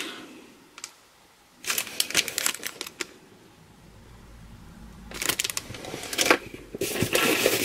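Packaging being handled: crinkling and rustling with small clicks in two bursts, one about a second and a half in and a longer, denser one from about five seconds on.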